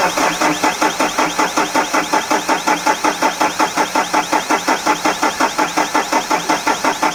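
Mahindra Bolero Pickup's four-cylinder diesel engine being cranked on the starter motor: a steady, even chugging of about five to six compression strokes a second that starts suddenly and keeps the same pace without the engine firing up. The engine will not start because air is in its fuel lines, which are being bled.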